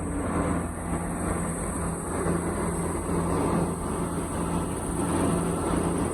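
Engine of road-repair machinery running steadily, with a constant low hum.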